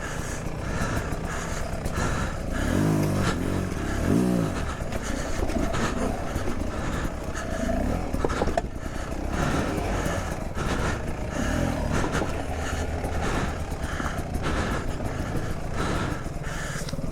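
Beta 300 two-stroke dirt bike engine running under load on a rough trail, the revs rising and falling over and over, with a quick run of rev swings a few seconds in and scattered knocks.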